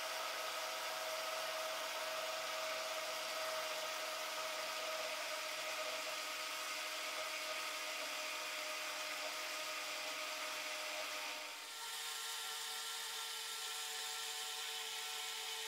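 Electric countertop blender motor running steadily with a whir while soybean oil is drizzled in, emulsifying an egg-and-mayonnaise salad dressing. The pitch and tone of the whir change abruptly about twelve seconds in, then hold steady again.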